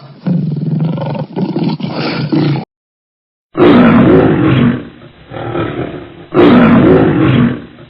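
Big cat roaring and growling. A stretch of deep growls stops, and after a brief silence two long, loud roars follow about three seconds apart.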